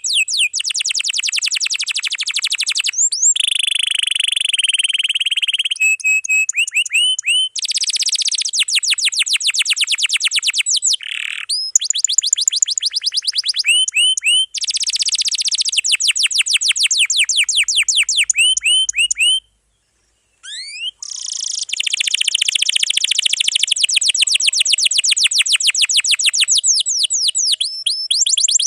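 Canary singing full song in long, fast rolls: rapid trains of repeated rising notes, phrase after phrase with short breaks, and about a second of silence two-thirds of the way through.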